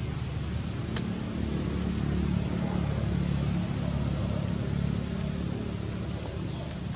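Low, steady engine-like hum that swells somewhat in the middle and eases near the end, with a single sharp click about a second in.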